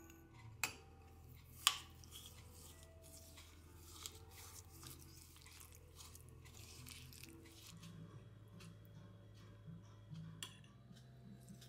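Metal spoon clinking and scraping against a ceramic bowl as chopped nuts, sesame seeds and sauce are stirred together, with two sharp clinks in the first two seconds, over soft background music.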